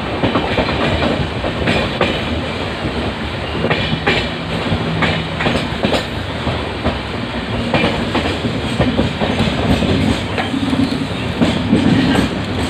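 An Eastern Railway electric local train (EMU) running past close by: a steady rumble with its wheels clicking over the rail joints, and a low hum that comes and goes.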